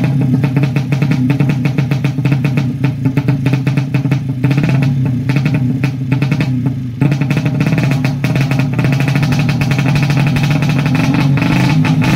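Suzuki Satria FU 150 cc single-cylinder drag-race engine with a PWK 38 carburettor, held at high revs on a stand and running loud through its open racing exhaust, with a brief dip in revs about seven seconds in.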